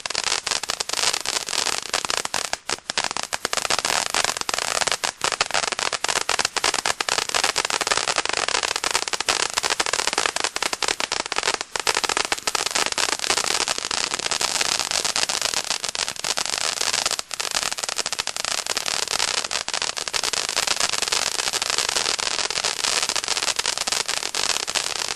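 Chaos World P3077 ground fountain firework spraying sparks. It makes a steady, loud hiss packed with dense crackling.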